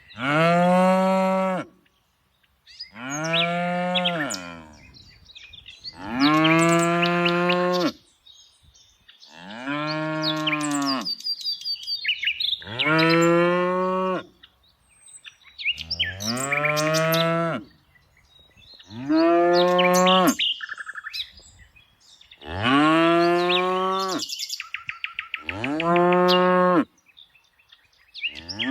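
Cow mooing over and over, about one long moo every three seconds, each rising and then falling in pitch. Birds chirp faintly between the moos.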